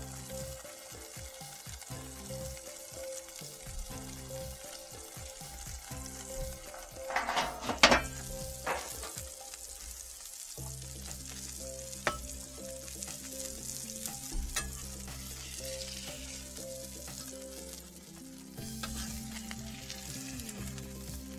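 Beef smash burger patties sizzling on a hot cast-iron griddle over charcoal, a steady frying hiss. About seven to eight seconds in there is a loud metal clatter as the sheet pan covering the patties is lifted off.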